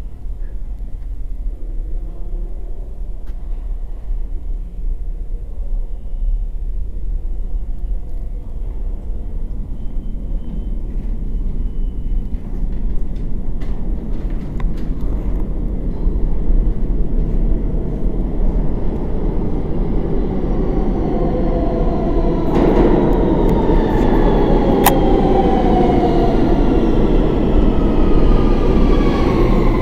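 New York City subway train pulling into an underground station. Its rumble grows steadily louder, and over the last several seconds a whine falls in pitch as the train slows, with a single sharp click along the way.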